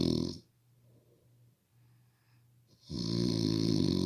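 Loud snoring from a sleeper: one long snore cuts off about half a second in, and after a quiet pause of about two and a half seconds another snore of about two seconds begins.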